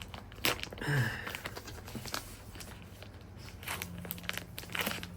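Packaging being handled during an unboxing: crinkling and rustling of paper and plastic wrapping, with scattered short clicks and taps, the sharpest about half a second in.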